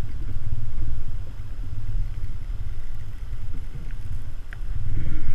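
Low, uneven rumble of wind buffeting a small action-camera microphone, with a few faint clicks.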